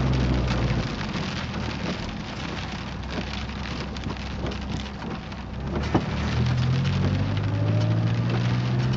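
Chevrolet Cavalier heard from the cabin: an engine drone that drops away about a second in and comes back about six seconds in, over steady road hiss, with scattered small creaks and clicks and one sharper click near six seconds — the creaking noise being checked.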